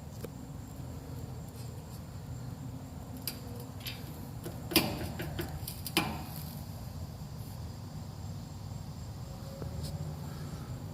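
Handling noise from realigning a garage door safety sensor: scattered small clicks and two sharper knocks about five and six seconds in, over a low steady hum.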